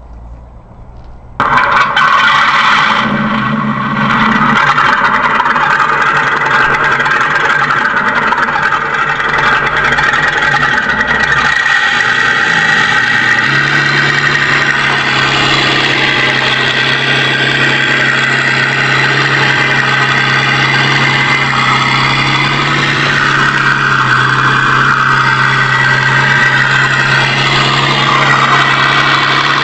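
Simulated tank engine sound from a 1/6-scale Armortek Panther model's onboard sound unit: it starts abruptly about a second and a half in, then runs at a steady idle, its low hum stepping up in pitch about twelve seconds in.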